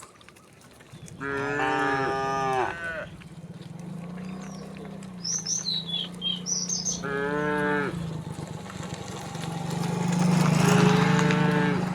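Cows mooing: three long drawn-out moos, each bending down in pitch at its end, over a low steady hum. A few short high chirps come between the second and third moo.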